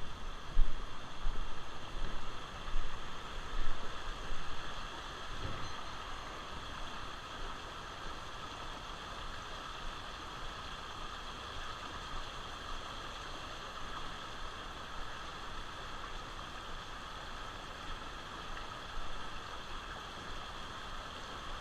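Steady rush of flowing river water, with loud irregular bumps on the microphone in the first few seconds.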